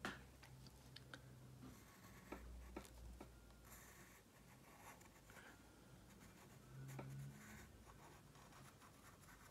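Faint scratching of a charcoal pencil on paper, stroking around butterfly shapes to outline them.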